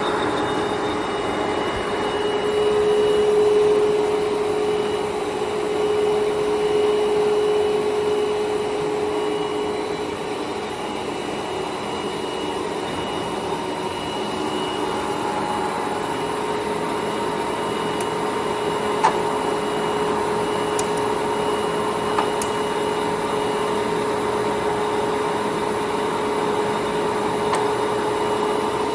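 Large Jin Ling 25180G gap bed engine lathe running under power: a steady machine drone with a constant gear whine, and two faint clicks a little past the middle.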